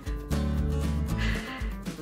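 Background music with steady, held bass notes.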